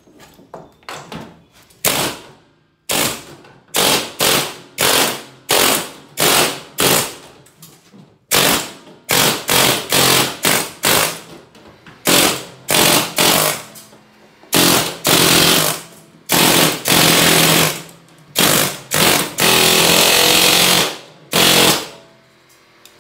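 Kobalt pneumatic air hammer with a chisel bit hammering at the steel rivets of a school bus's interior side panels to cut them out. It fires in dozens of loud trigger bursts, most under half a second, and a few in the second half are held for a second or more.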